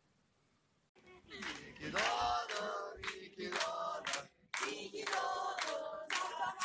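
A group of people singing together, starting about a second in after a brief silence.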